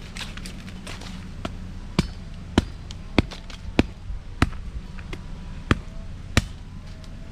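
A series of about seven sharp knocks in an even rhythm, a little under two a second, starting about two seconds in, over a steady low rumble.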